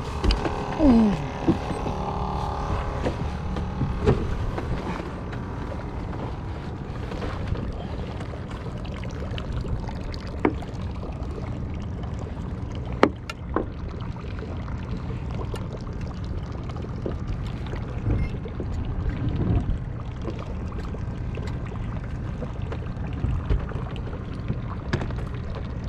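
Small wooden fishing boat's inboard engine running steadily at idle, a low even hum, with a few sharp clicks and knocks of handling on board.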